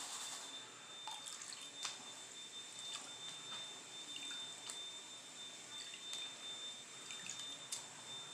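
Faint water drips and small splashes, irregular, as a black plastic gold pan of paydirt is dipped and tilted in a tub of muddy water during gold panning.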